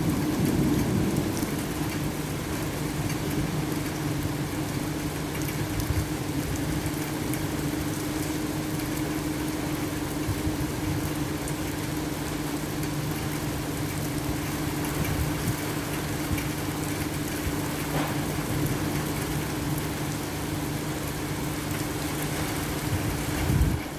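Thunderstorm rain pouring steadily, with a steady low hum underneath.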